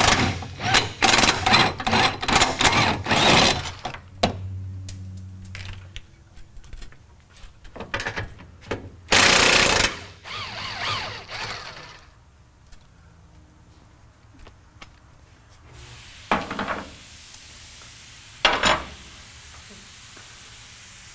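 Power wrench on a long extension loosening the 15 mm fuel-tank strap fasteners. It gives a rapid rattling run of about three seconds at the start, a second one-second run about nine seconds in, and two short blips near the end.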